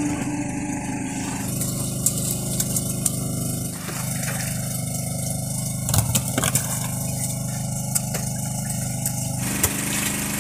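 Fishing boat's engine running steadily with a low hum, and a few sharp knocks of plastic fish crates being handled.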